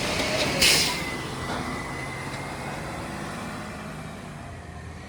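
Yard waste collection truck's engine running and fading as the truck moves off, with a short burst of air hiss, like an air brake release, just under a second in.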